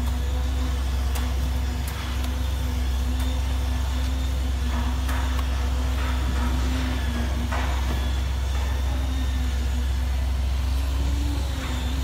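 Concrete pump truck's diesel engine running steadily under load while pumping, a low drone with a slightly wavering hum above it. A few faint knocks are spaced irregularly through it.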